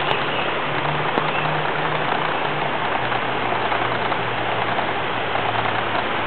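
Steady rushing outdoor noise with a low droning hum that drops slightly in pitch about three seconds in.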